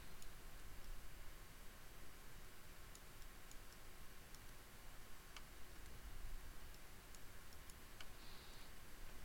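Faint computer mouse clicks, a handful scattered through, over a low steady hiss.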